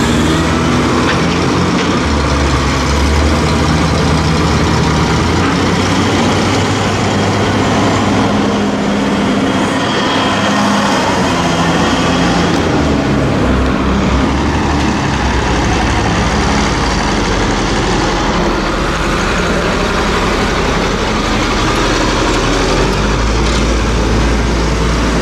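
JCB 414S wheeled loader's diesel engine running under load, its pitch rising and falling as the machine pushes up silage on the clamp.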